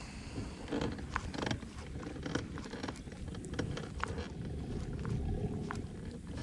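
Low, uneven rumble of wind buffeting an action-camera microphone, with scattered light clicks throughout.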